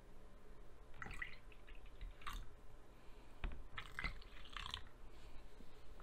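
Red cabbage juice poured in short, faint spells into small plastic pots, with light splashing and dripping.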